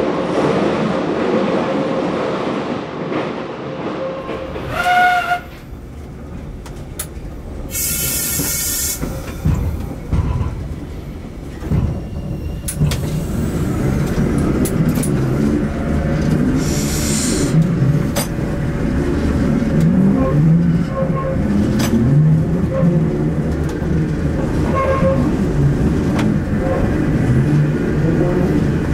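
Moscow Metro Ezh3 track-recording car running on the rails with a steady low rumble that grows louder in the second half. A short high whistle blast comes about five seconds in, and there are bursts of air hiss at about eight seconds and again near seventeen seconds.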